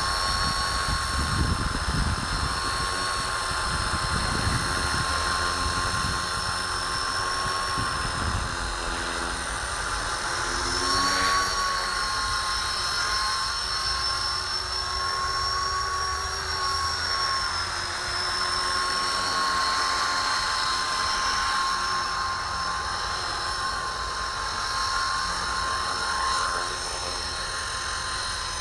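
Electric Copter X 250 RC helicopter's motor and rotors whining steadily, the pitch wavering briefly about ten seconds in and again a few seconds later.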